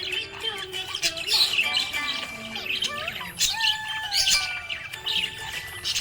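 Budgerigar chirping and warbling with a rapid run of short chirps, squawks and sliding whistled notes.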